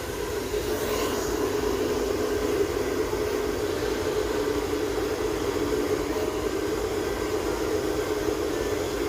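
A Sonar hand-held hair dryer blowing steadily, a constant whooshing motor-and-air noise that gets a little louder about half a second in.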